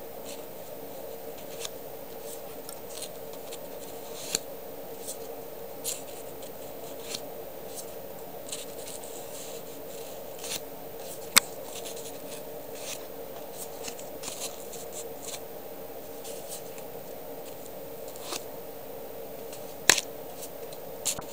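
Paper sticker labels being handled and flipped: scattered short crinkles and paper snaps, with two sharp clicks standing out about 11 and 20 seconds in, over a steady low hum.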